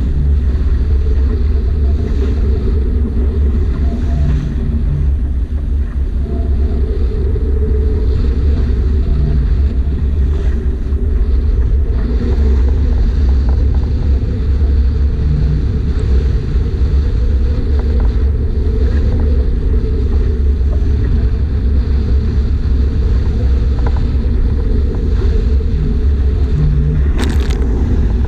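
Strong wind buffeting the microphone aboard a sailing yacht: a loud, steady low rumble, with one brief sharp knock near the end.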